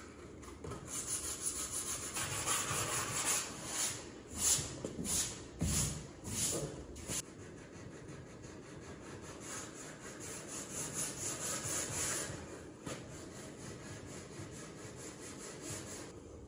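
Hand sanding with 60-grit sandpaper on a canoe's T-Formex plastic hull, scuffing off the shine so the epoxy for a skid plate will bond. Rubbing strokes go back and forth, louder and sharper in the first half, then lighter.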